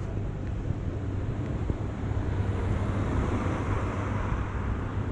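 Street traffic noise with low wind rumble on the microphone; a passing vehicle swells up about halfway through and fades near the end.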